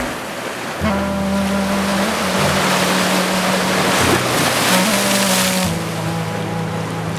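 Background music of sustained low chords changing every second or two, with a hiss that swells in the middle and falls away near the end.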